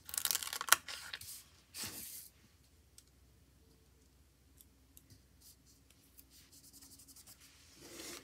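Paper rustling as a sticker is peeled off its backing sheet in a sticker book, in scratchy bursts over the first two seconds. Then mostly quiet with a few faint taps as it is pressed onto the planner page, and more paper rustling near the end.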